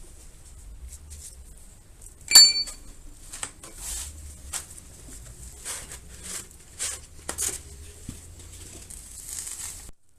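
Metal motorcycle parts being handled: a series of clinks and knocks, the loudest a sharp metallic strike about two seconds in that rings briefly, then several lighter knocks.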